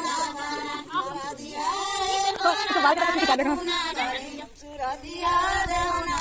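Women's voices singing together without instruments, in long held notes that slide up and down.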